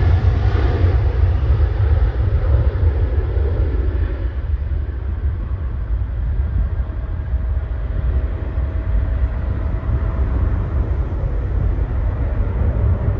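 Boeing 737 jet engines at takeoff power: a loud, deep rumble as the airliner rolls and lifts off. The higher engine noise fades after the first few seconds as it climbs away.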